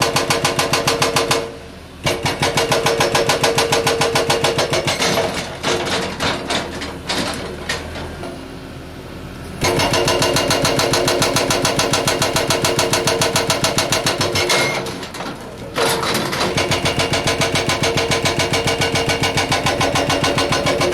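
Hydraulic breaker on a 330 excavator hammering rock in rapid, evenly spaced blows over the excavator's running engine. It stops a few times for a second or so, with some uneven hits in between.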